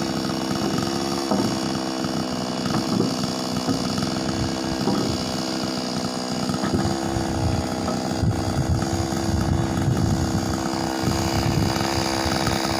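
OGAWA petrol chainsaw running steadily at high speed, ripping a hardwood log lengthwise into 2x4 timber.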